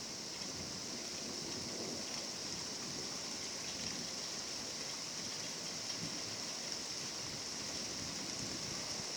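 Steady rain falling in a forest: an even hiss with scattered drops.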